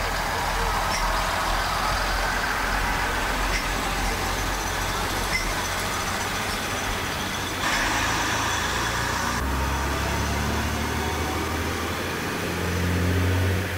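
British Rail Class 142 Pacer diesel multiple unit departing from a platform, its Leyland TL11 diesel engines running with a steady low note. A hiss sounds about eight seconds in, and the engine note grows louder near the end as the unit pulls away.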